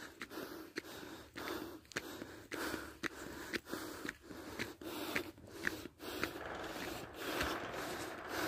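A person breathing hard while walking up a steep slope, with short footsteps on concrete about twice a second.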